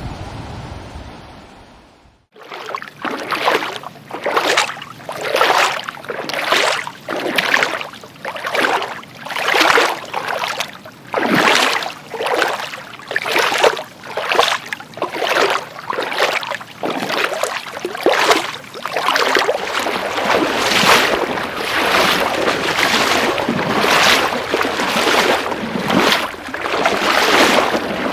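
Steady sea surf fades out about two seconds in. Then sea water sloshes and splashes against rocks in quick, regular surges, about one a second.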